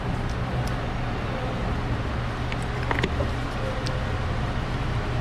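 Steady low background hum with a few light plastic clicks and a knock about three seconds in, as the EVAP purge solenoid is tugged and worked off its mounting bracket.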